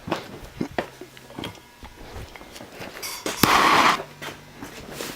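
Clicks and knocks of tools being handled. About three and a half seconds in, a sharp click and a loud hiss lasting about a second: a handheld torch being lit to heat the metal around a broken bolt.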